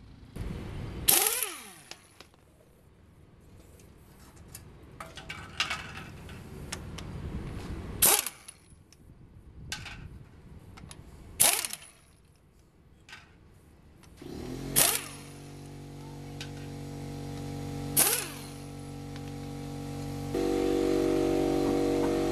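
Pneumatic impact wrench spinning lug nuts off a pickup truck wheel in about five short loud bursts, some ending with a falling whine as the tool spins down. About two-thirds of the way through a steady machine hum of several tones sets in and gets louder near the end.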